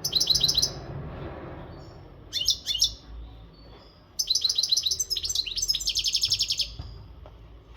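Male European goldfinch singing in bursts of rapid, high twittering notes. There is a short phrase at the start, another about two and a half seconds in, and a longer run through the middle. This is the full song of a bird in breeding condition.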